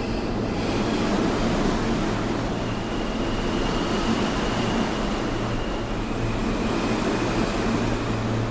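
R160 subway train passing along the platform, its wheels on the rails making a steady rolling noise. A faint high whine joins in about two and a half seconds in and drops slightly in pitch near the end.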